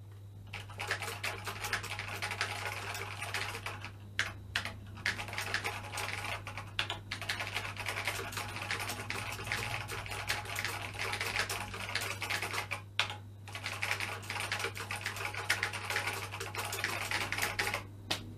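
Fast typing on a BBC Master 128's keyboard: a dense run of key clicks with a few short breaks, over a steady low hum.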